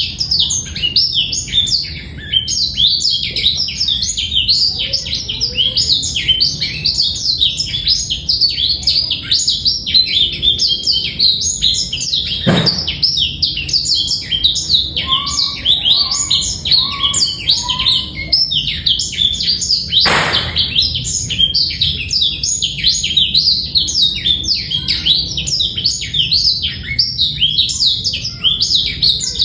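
Male blackthroat (black-throated canary) singing a long, unbroken run of rapid, high twittering notes, clear and without a rattling trill. Two brief thumps break in, about twelve seconds in and again about twenty seconds in.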